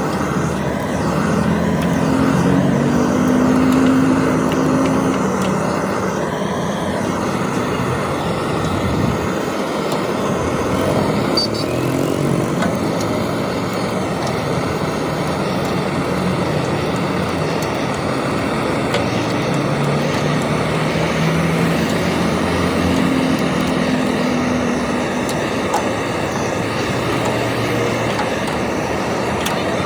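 Steady engine noise, with a deeper engine hum swelling in the first few seconds and again about two-thirds of the way through.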